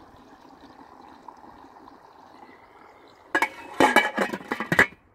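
Wort recirculating through a homebrew mash kettle: a faint, steady trickle of liquid. About three seconds in, a quick run of loud clattering knocks and rattles for a second and a half.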